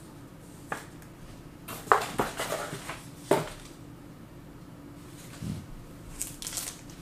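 Trading cards and their packaging handled on a table: a few sharp hard taps and clicks, a cluster of them about two seconds in and another a little after three seconds, then a light rustle near the end, over a steady low hum.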